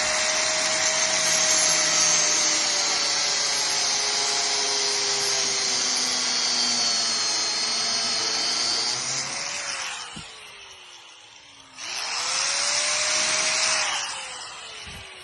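Angle grinder cutting through a metal gate lock, a long cut that ends with the motor spinning down about ten seconds in. The grinder starts again about two seconds later, spinning up for a short second cut, then winds down near the end.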